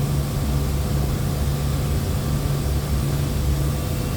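Steady low machine hum from running workshop machinery, unchanging throughout.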